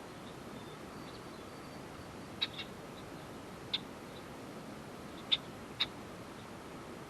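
Small wild birds calling with short, sharp chirps, five in all, scattered in pairs and singles over a steady background hiss, with a faint thin high note about a second in.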